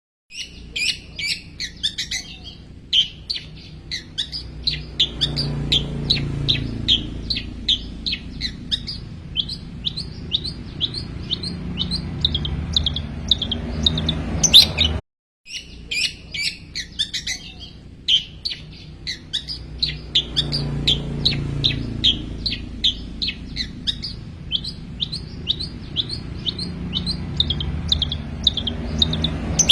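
Long-tailed shrike (cendet) singing a fast run of sharp, high chirps, about three or four a second, mimicking the songs of small birds. It cuts out briefly about halfway, then the same run starts again over a low hum.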